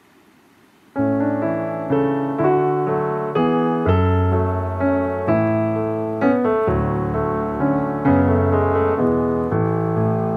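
Calm piano music comes in about a second in, with notes and chords struck about every half second, each fading away.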